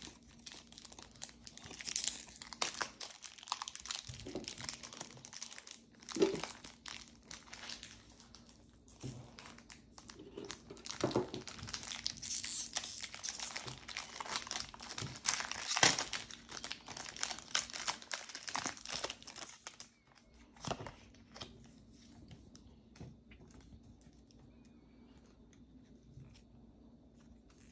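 Foil Pokémon booster-pack wrapper being torn and crinkled by hand in irregular crackles. After about twenty seconds it falls much quieter, leaving only faint light handling sounds.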